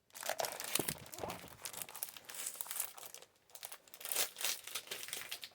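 Plastic packaging of a scrapbook paper collection crinkling as it is handled, in a run of irregular crackles with a short pause a little after three seconds.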